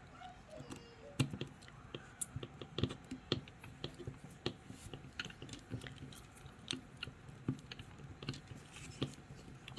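Scattered small clicks and ticks of plastic robot-kit parts being handled and worked together by hand, irregular and close.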